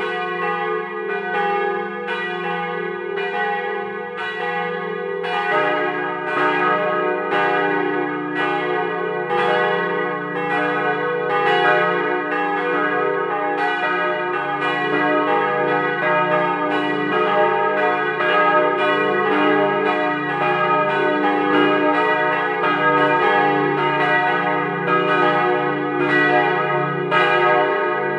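Swinging church bells cast by Rüetschi of Aarau in 1927, ringing together as a full peal with a steady stream of strokes and long, overlapping hum. Another bell joins about five and a half seconds in, adding a new tone.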